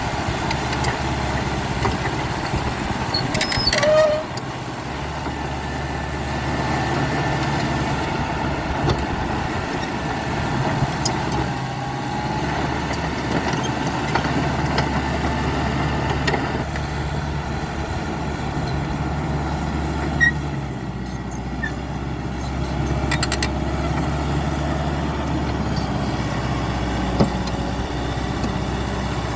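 CAT D5K XL bulldozer's diesel engine running steadily, its drone swelling and easing several times as the load changes. There is a brief squeal about four seconds in, and scattered short clicks.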